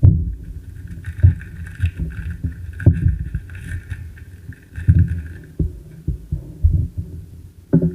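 Irregular low thumps and rubbing of trading cards being flipped and handled close to the microphone, with a fainter higher rustle from about one second in to the middle.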